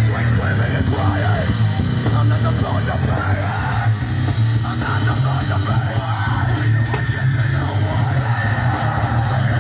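Heavy metal music with guitar playing back through a Blaupunkt SL 8715-A2 8 cm car speaker, its cone repaired, in a small box cabinet. It plays loud and steady, with a strong constant bass.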